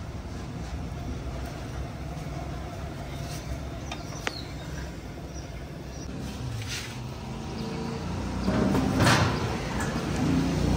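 Steady low rumble of street traffic, then, from about eight seconds in, a large stainless-steel cooking pot being gripped and shifted, with louder metal sliding and scraping.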